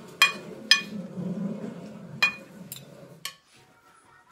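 Metal fork and spoon clinking against a plate while scooping up fried rice: about five sharp clinks, the two loudest in the first second, over a low murmur that stops about three seconds in.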